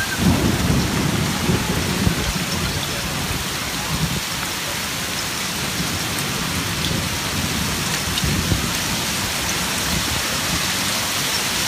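Heavy rain falling steadily during a thunderstorm, with low rumbles of thunder in the first couple of seconds and again about eight seconds in.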